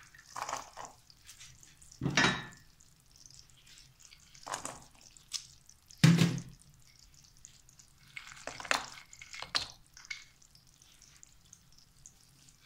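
Sliced coconut, almonds and cashews dropped into a nonstick pan of bubbling sugar syrup: about six separate plops and clatters, the loudest about two and six seconds in.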